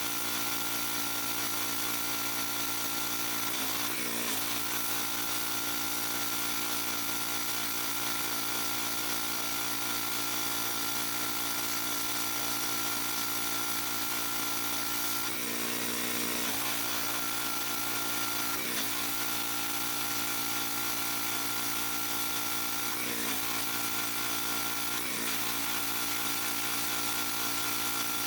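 Pressure washer running steadily: a constant motor hum under a high spray hiss, its pitch wavering briefly a few times.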